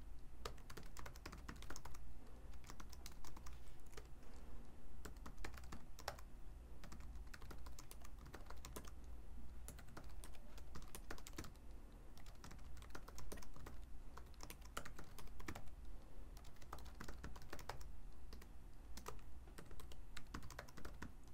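Typing on a computer keyboard: a continuous, irregular run of key clicks as code is entered.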